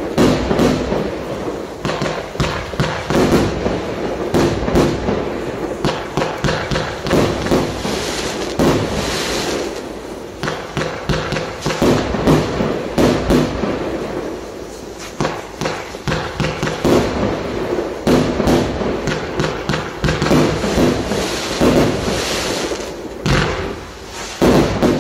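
A 42-shot firework barrage cake (Cube Fireworks 'Collateral Damage') firing a rapid, continuous run of shots: many close-spaced bangs and bursts, with brief lulls twice.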